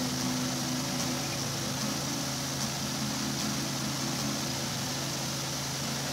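Helicopter engine and rotors running steadily in flight: a constant drone with a hiss above it.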